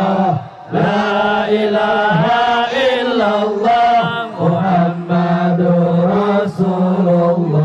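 Group of men chanting in unison into microphones over a sound system: a slow, melodic Islamic devotional chant with long held notes. There is a short break about half a second in.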